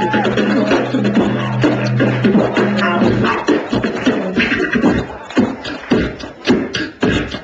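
Beatboxing through a microphone: a held low hummed bass under percussive mouth sounds that stops about three seconds in, then sharp rhythmic beats with short gaps between them.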